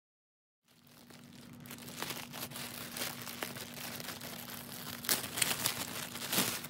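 Clear plastic bag crinkling and crackling as hands handle it around a foam-wrapped item, starting after a moment of dead silence and growing louder, with sharper crackles about five and six seconds in.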